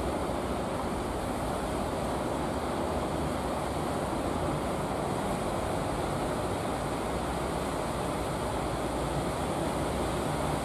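Steady wash of breaking surf and wind on the microphone, with a low drone of the incoming wooden fishing boats' engines underneath.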